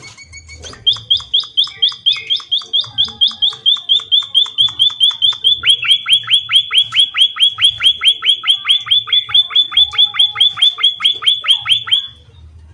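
A small songbird presented as an emprit (pipit, a munia) calling in a long rapid series of sharp, high, down-slurred chirps, about five a second, starting about a second in and stopping just before the end.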